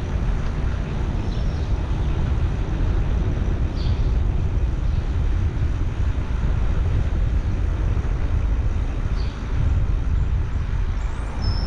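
Wind rumbling on the microphone of a helmet-mounted GoPro Hero9 as a bicycle is ridden along a street: a steady, loud low rumble. A few faint, short high chirps come through now and then.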